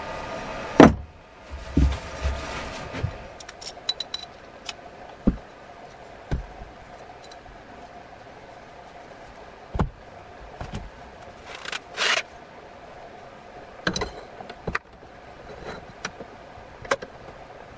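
Workbench handling noises: scattered clicks, knocks and metallic rattles as a disc is fitted to an angle grinder and an axe head is clamped in a bench vise. A steady hum stops at a sharp knock about a second in.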